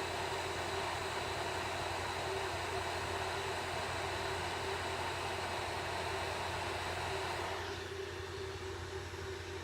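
Hot air rework station blowing a steady rush of air with a steady hum; about eight seconds in the rush drops away, leaving a quieter fan hum.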